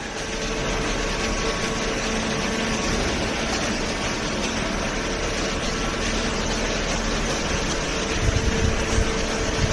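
Hydraulic waste-paper baler running: a steady machine hum with a constant tone from its pump motor, joined by irregular low thumps near the end.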